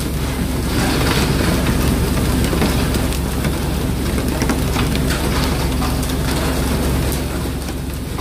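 A fishing boat's engine running with a steady low drone, under a constant rain-like hiss of wind and water spray, with scattered small ticks and knocks.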